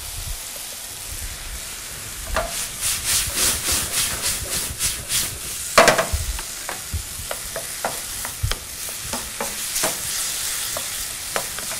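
Diced pumpkin and crumbled gorgonzola sizzling in a hot frying pan, stirred with a wooden spatula. There is a quick run of scraping strokes a few seconds in, a loud knock around the middle, then lighter taps of the spatula against the pan.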